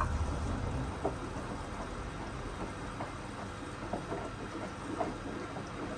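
Hoover front-loading washing machine running a Rapid 14' wash: a steady noise from the drum and water, with a few faint knocks.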